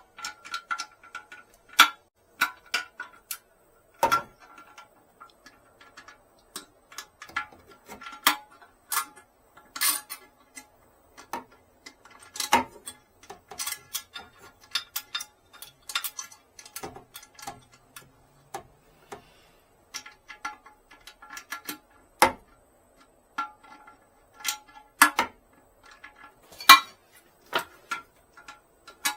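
Irregular metallic clicks and clinks of a wrench working the tank-to-bowl bolts of a toilet, with a few sharper knocks among them.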